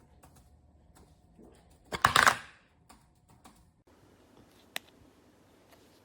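Handling noise: scattered light clicks, a louder brief clatter about two seconds in, and one sharp click near the end.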